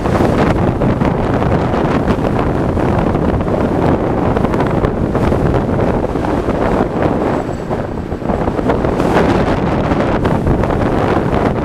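Wind buffeting the microphone of a camera riding on a moving electric scooter: a steady, loud rushing.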